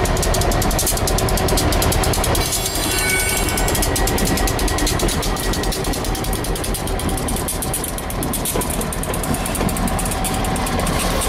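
EMD SD50 diesel-electric locomotive, with its 16-cylinder two-stroke 645 engine running, rolling slowly past through a road crossing and pulling away, with steel wheels on the rail. The deep engine rumble is steady and eases off slightly toward the end.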